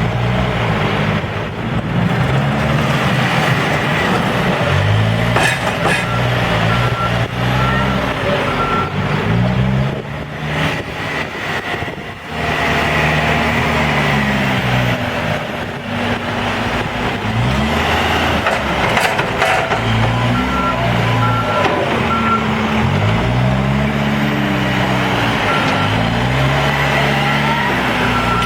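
Diesel engine of a Case 590 Super N backhoe loader revving up and down again and again as it digs and loads dirt. A reversing alarm beeps in several spells, about two beeps a second.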